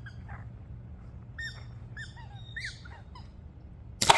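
Birds chirping in short, repeated calls, then about four seconds in a single sharp, loud crack with brief ringing: a slingshot rifle shot at a can.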